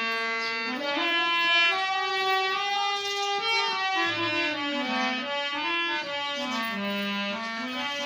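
Instrumental opening of a Krishna bhajan: a single reedy, clarinet-like melody line moving up and down in pitch in held notes, with no singing.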